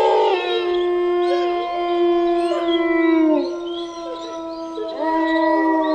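Several wolves howling together in a chorus: long, overlapping held howls at different pitches, some sliding down. The chorus thins out about three and a half seconds in and swells again about a second later.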